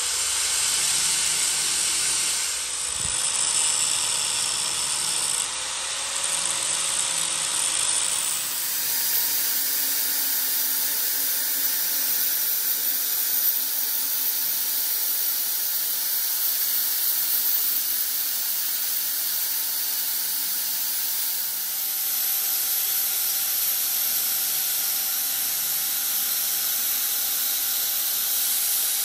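Angle grinder running and grinding on the teeth of a steel truck differential pinion gear: a steady whine over a continuous grinding hiss. The pitch of the whine shifts about 8 seconds in and again near 22 seconds.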